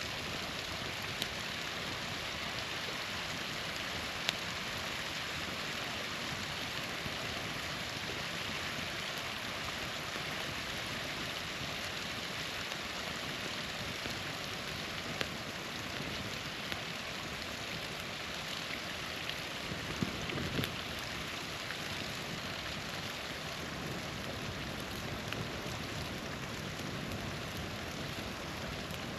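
Steady rush of a small waterfall, with a few sharp pops and crackles from a wood campfire scattered through it.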